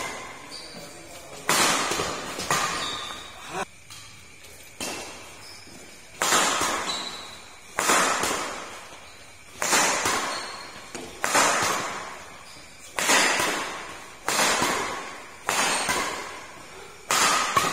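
Badminton racquets striking a shuttlecock back and forth in a doubles rally: about a dozen sharp thwacks, one every second and a half or so. Each hit rings out in an echoing hall.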